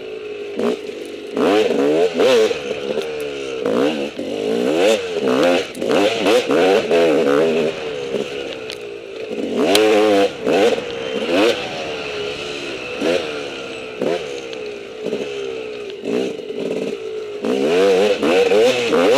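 Enduro dirt bike engine revving up and down over and over, about once a second, as the throttle is worked through a slow, rough section. Clattering knocks come in among the revs as the bike bangs over the uneven ground.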